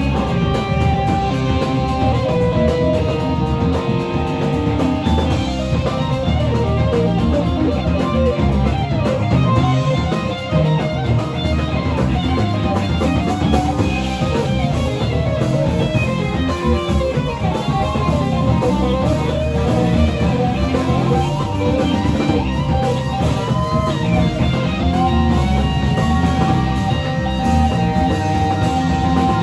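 Live band playing: a hollow-body electric guitar picks a melodic lead line over a rhythm section with drums.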